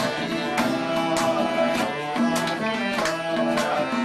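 Acoustic guitar strummed in a steady rhythm, a chord stroke roughly every 0.6 seconds over ringing notes.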